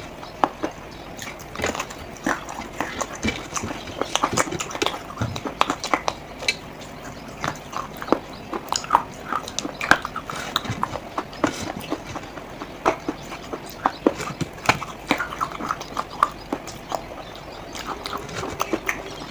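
Clay pottery giving irregular short clicks and taps, several a second, with no steady rhythm.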